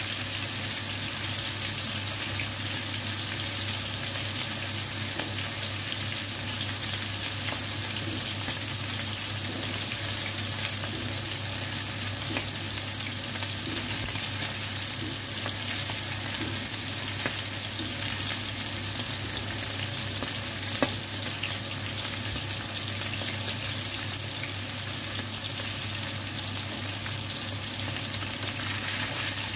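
Chicken pieces frying in hot oil in a wide pan, a steady sizzle, with a few sharp ticks scattered through it.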